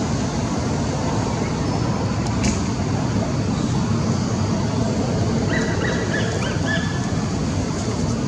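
Steady low rumbling background noise with no clear pitch, with a brief faint higher sound about five and a half seconds in.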